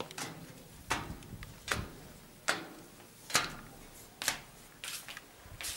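Footsteps climbing a staircase: a steady row of sharp steps a little under a second apart, two of them louder than the rest near the middle.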